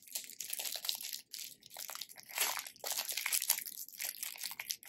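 Plastic packaging crinkling as it is handled, a dense run of irregular crackles.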